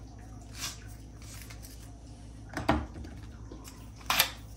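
Wooden salt grinder giving a last short grind over the bowl, then set down on the worktop with a knock about two-thirds of the way in, followed by a sharp clack near the end as the next grinder is handled.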